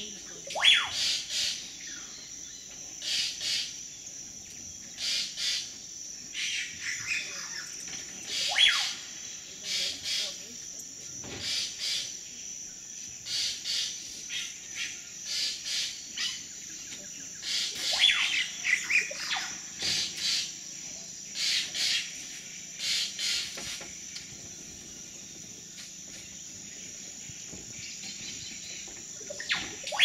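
Amazonian forest birds calling: many short repeated calls and a few long whistles that fall steeply in pitch, over a steady high-pitched insect drone.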